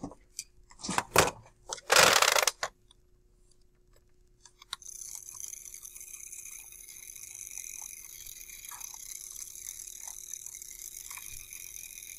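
A few handling knocks and a short scraping rustle in the first few seconds. Then, nearly five seconds in, the small motor of a handheld standing-wave demonstrator switches on and runs with a steady high whir, shaking an elastic cord into a standing wave.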